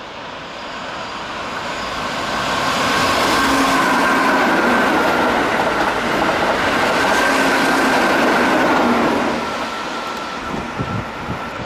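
Keihan 8000 series express train passing through a station at high speed without stopping: it builds as it approaches, runs loudest for several seconds with a steady whine over the wheel rumble, then fades near the end as it draws away.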